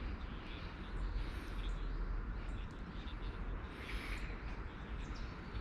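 Birds calling outdoors: a few short, high, thin arching calls, over a steady low rumble of wind on the microphone.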